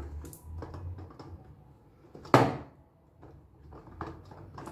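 Handling noise from an upside-down Cadence electric grill pan resting on a serving plate: a low rub and a few small taps, with one sharp knock about halfway through.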